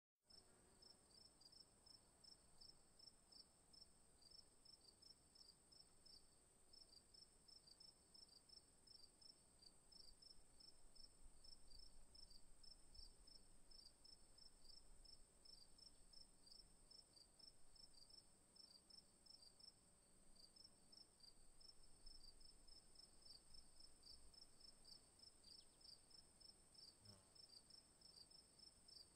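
Faint insect chirping: a steady high-pitched hiss with a quick, unbroken run of repeated chirps beneath it.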